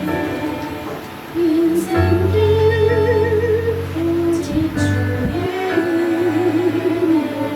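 Music: a slow melody with vibrato over sustained accompaniment and low bass notes, swelling louder about a second and a half in.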